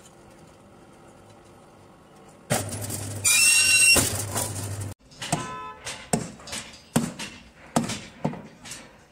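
Electric rebar bending machine: after a quiet pause its motor starts humming about two and a half seconds in, and a loud high squeal of the steel bar being bent around the machine's pins follows, stopping abruptly at about five seconds. Then comes a quick series of sharp clicks or knocks at uneven spacing.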